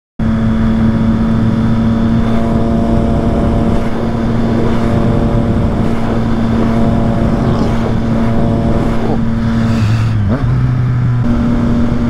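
Triumph Street Triple 765 RS's three-cylinder engine, through a Yoshimura exhaust, running at steady revs while cruising, with wind noise. Its pitch dips briefly about ten seconds in, then settles again.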